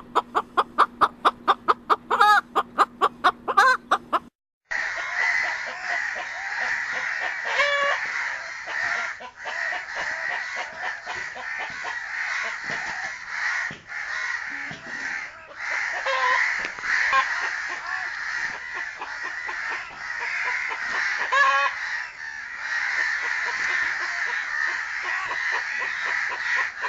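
Chickens calling: for about four seconds a rapid run of repeated calls, about six a second, then after a brief break a continuous clamour of a flock of chickens with now and then a louder single call.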